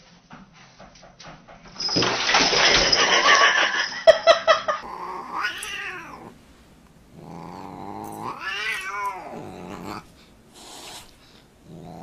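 Cats in a fight: a loud rushing hiss lasting about three seconds, then a cat's long yowls that rise and fall in pitch, twice.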